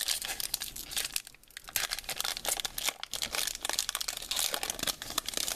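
Foil-wrapped Pokémon booster pack being torn open and crinkled by hand, a dense irregular crackle and crinkle throughout.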